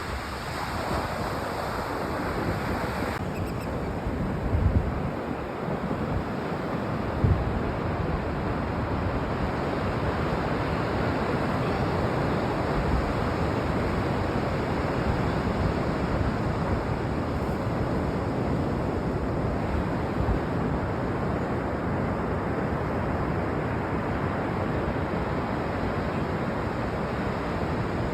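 Ocean surf washing steadily onto a beach, with wind blowing over the microphone. Two brief low thumps of wind buffeting come about five and seven seconds in.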